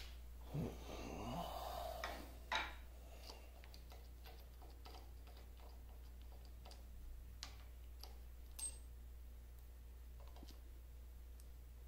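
Light metal clicks and clinks as the compound slide of a 1950 LeBlond Regal lathe is taken apart by hand, its nut and washer loosened and lifted off, with a short scrape of metal sliding on metal in the first couple of seconds. A low steady hum runs underneath.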